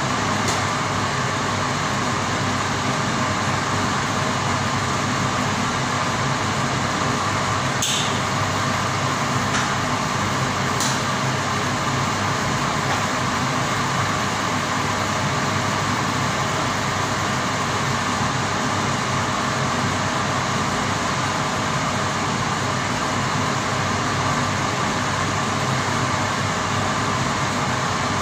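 Steady drone of running plant-room machinery, with two light clicks about a third of the way in.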